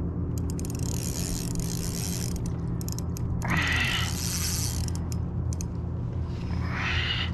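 Spinning reel cranked against a heavily bent rod under load, its gears and drag ticking rapidly, with the densest run in the first two seconds and shorter bursts about halfway through and near the end.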